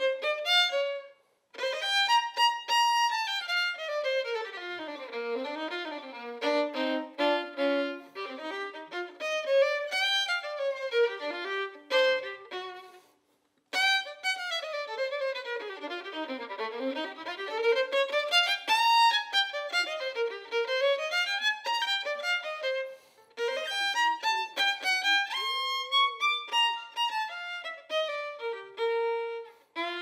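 Jazz violin playing fast runs that sweep up and down the instrument. It breaks off briefly about a second in and again near the middle.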